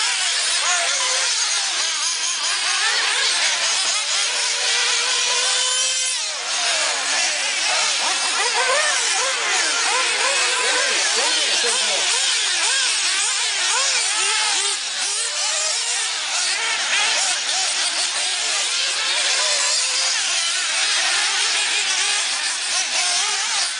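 A pack of 1/8-scale nitro RC buggies racing, their small two-stroke glow engines running high-pitched and overlapping, each revving up and down through the corners and straights.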